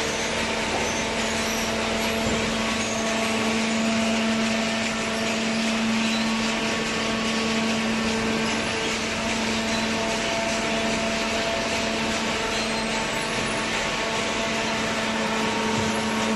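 Hydraulic baling press running: a steady machine hum with a few held tones and no sudden knocks.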